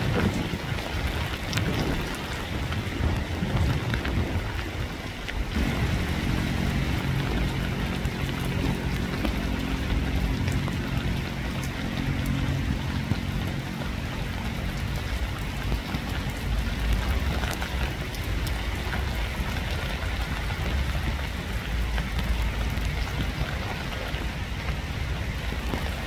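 Steady rain falling: a dense, even hiss over a low rumble. About five seconds in, a low drone made of several steady pitches joins the rain and fades out after about ten seconds.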